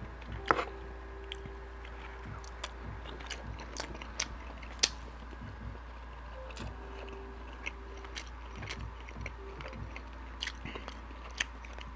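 Close-miked chewing: a person eating with wet, scattered mouth clicks and smacks.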